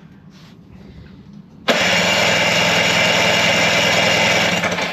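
Electric starter cranking a 1995 Johnson 15 hp two-stroke outboard for about three seconds, starting abruptly a little under two seconds in and stopping near the end. The engine turns over without firing because the ignition is giving no spark.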